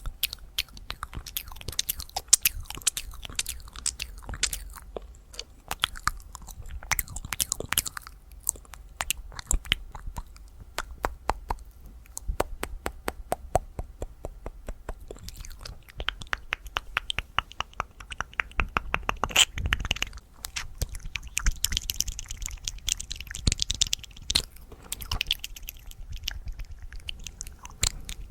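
Fast ASMR mouth sounds close to the microphone: rapid wet tongue and lip clicks and smacks, many a second, with a stretch of breathy hissing near the end.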